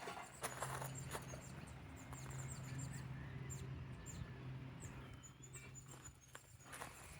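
Footsteps on a farm path, a couple of steps early on and again near the end, over a faint steady low hum and outdoor hiss.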